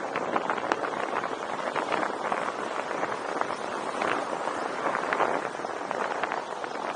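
Cars passing on a road close by, each one a swell of tyre and engine noise that rises and fades, over a steady rush of wind on the microphone while moving. Scattered light clicks and rattles.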